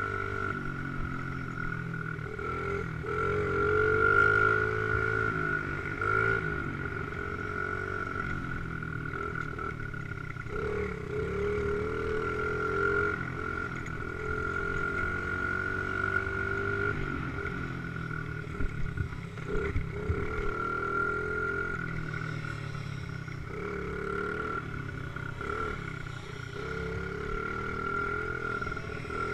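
Dirt bike engine under way, its pitch rising and falling over and over as the throttle is opened and closed along the trail, with a steady high whine running underneath.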